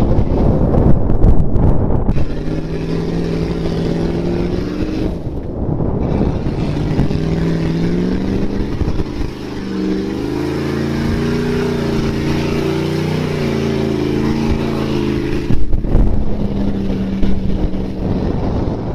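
Pickup truck engine revving hard and held at high revs while its tires spin through mud. The pitch dips and climbs again about halfway through. A loud rumble comes first, and there is a short loud burst near the end.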